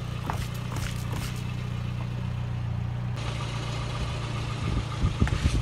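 A car engine idling with a steady low hum, then a run of sharp crackles and pops near the end.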